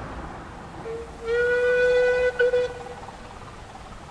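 A one-third-scale steam locomotive's whistle sounds one blast of about two seconds, starting about a second in, with a short stutter just before it stops.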